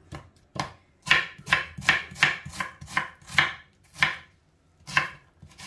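Kitchen knife cutting an onion into small cubes on a cutting board: a run of crisp, evenly spaced strokes about two or three a second, with a short pause near the end before the cutting resumes.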